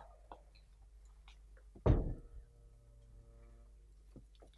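A single heavy thump about two seconds in, followed by faint steady tones and a few light clicks near the end.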